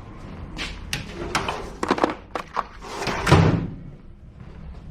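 Tool clatter: a series of sharp clicks and knocks as sockets and tools are handled while a socket is swapped, with a louder knock and rustle about three seconds in.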